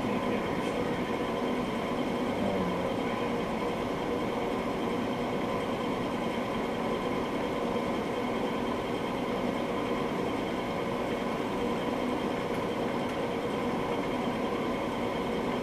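A steady mechanical hum with several fixed tones in it.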